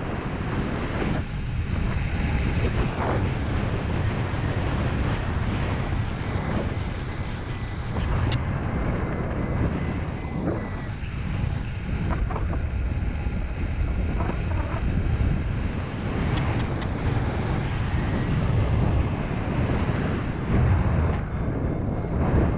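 Wind noise from the airflow buffeting the camera microphone of a paraglider in flight: a steady rush that swells and dips in gusts, with a few faint clicks.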